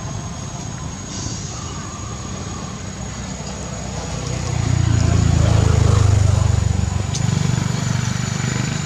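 Low engine rumble of a motor vehicle running nearby, growing louder about halfway through and easing off again near the end.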